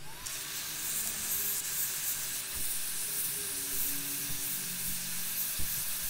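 Hot air rework gun blowing a steady hiss of hot air onto a flash drive's NAND chip, heating the solder on its pins to lift the chip off.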